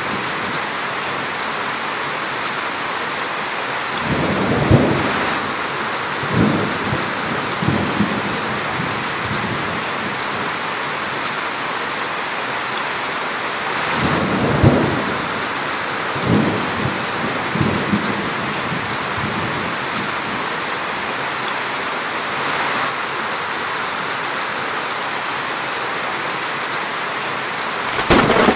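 Heavy rain pouring steadily on trees and grass, with rolls of thunder rumbling about four seconds in and again about fourteen seconds in, and another thunderclap starting near the end.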